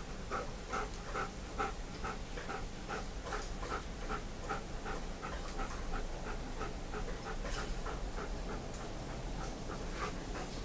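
German Shepherd dog panting rapidly and steadily close to the microphone, about three quick breaths a second.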